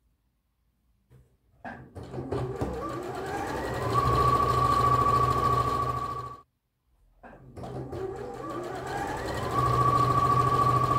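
Electric sewing machine stitching a seam in two runs. It starts about two seconds in, speeds up with a rising whine, runs steadily and stops around the middle. After a short pause it starts again and speeds up to a steady run.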